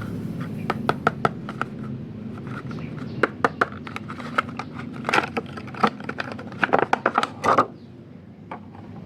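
Irregular crackling and clicking of packaging being handled and opened, in quick clusters, stopping about seven and a half seconds in.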